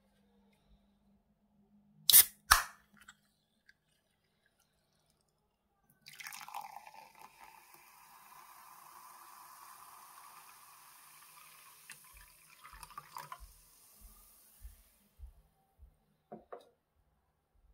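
Two sharp clicks, then liquid poured steadily into a clear glass bowl for about nine seconds, followed by a few small knocks.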